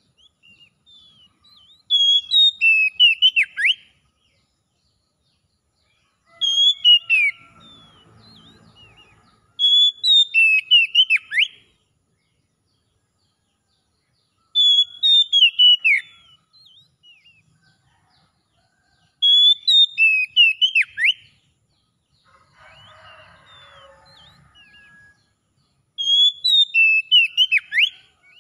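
Oriental magpie-robin singing: short phrases of clear whistled notes, each ending in a sharp falling note, repeated six times with pauses of a few seconds between.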